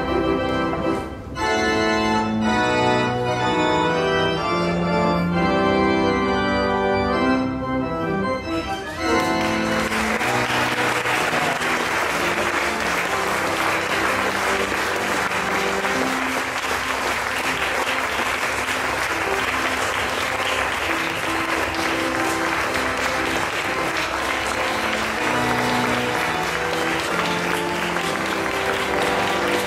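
Church organ playing a recessional in held chords; from about nine seconds in, guests applaud steadily over it as the newly married couple walk down the aisle.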